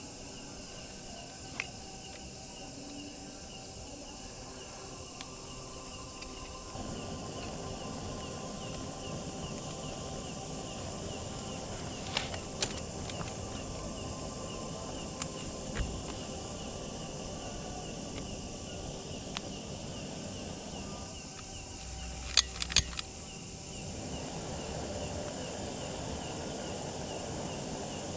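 Night insects chirring steadily in high, ticking tones, over a denser crackling hiss that comes in about seven seconds in. A few sharp clicks and clinks break through, a quick cluster of them about 22 seconds in being the loudest sounds.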